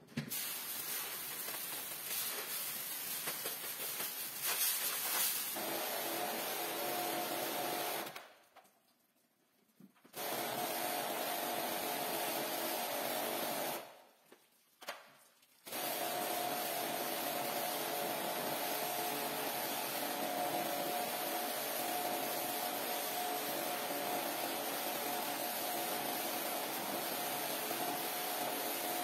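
Pressure washer running, its motor and pump giving a steady hum under the hiss of the water jet spraying a soaked rug on tile. The sound stops twice for a second or two, about eight and fourteen seconds in.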